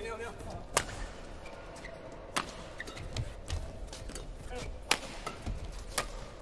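Badminton doubles rally: rackets strike the shuttlecock with sharp cracks every second or two, about five hits in all. Fainter taps and squeaks from the players moving on the court come between the shots.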